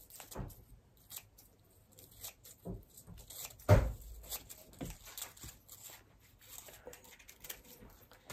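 Fingers handling small pieces of paper craft card and sticky backing, giving soft rustles and scattered small clicks, with one loud low thump about three and a half seconds in.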